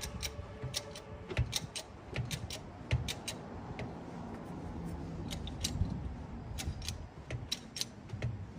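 Irregular metallic clicks and clanks from a jack being worked to raise the rear of an electric tricycle, over a low rumble.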